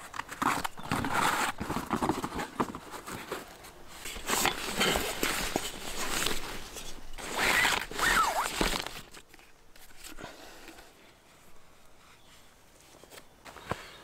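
Rustling and crinkling of camping gear being handled and packed: a pad being rolled up and items pushed into a nylon bag, in irregular bursts with small knocks. Much quieter for the last few seconds.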